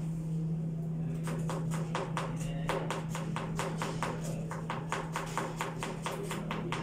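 A kitchen knife chopping on a cutting board: a quick, even run of knocks, about four a second, sparser in the first second. Under it runs a steady low hum.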